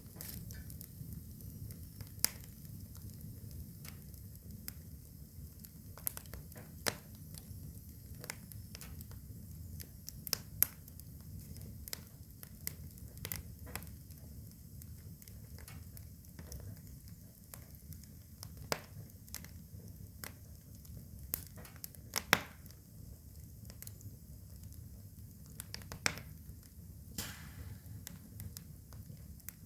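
Fire crackling: irregular sharp pops and snaps over a low, steady rumble, with a few pops much louder than the rest.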